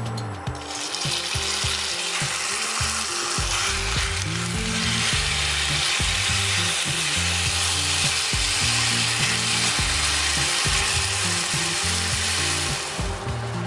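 Diced raw chicken breast sizzling in hot oil in a non-stick frying pan, stirred with a wooden spatula. The sizzle starts about a second in as the pieces hit the oil and dies down near the end.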